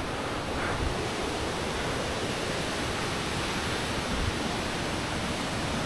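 Steady rushing of flowing water from a stream, an even hiss with no distinct events.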